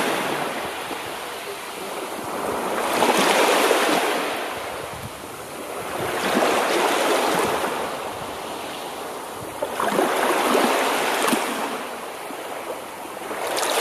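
Surf-like rushing noise that swells and falls away about every three and a half seconds.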